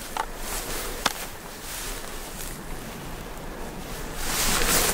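Wind and rustling on a handheld microphone while someone walks through grass, with a few light clicks. A louder rush of wind noise comes near the end.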